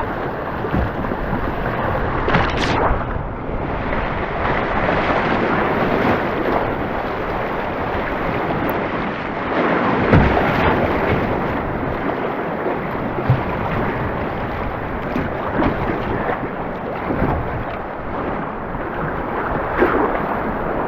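Loud, steady rush of whitewater rapids around a canoe, with waves splashing against and into the boat. A sharp splash comes about two and a half seconds in and a heavy low thump about ten seconds in.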